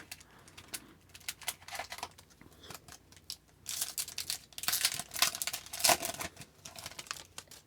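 Hockey trading cards being gathered up and squared into a stack: a run of light clicks, card-on-card slides and rustles, busiest about halfway through.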